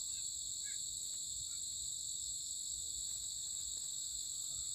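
Steady, high-pitched chorus of crickets trilling without a break.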